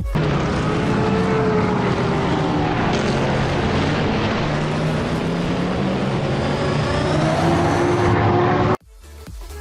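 A motor vehicle engine running, its pitch drifting slowly up and down; it cuts off suddenly near the end.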